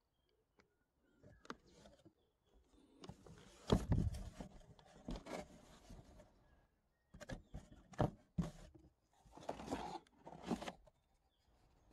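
Cardboard box and plastic packaging handled by hand: irregular rustling and scraping of cardboard flaps and plastic bags, with a few sharp knocks. It starts about a second in, with a brief pause partway through.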